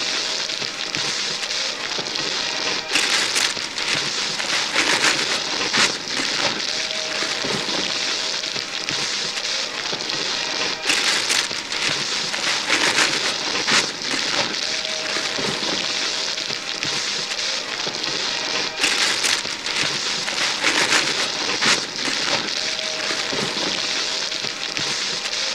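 Wrapping paper being torn and ripped off gift boxes by hands: a continuous crackling rustle of paper, with sharper, louder rips every few seconds.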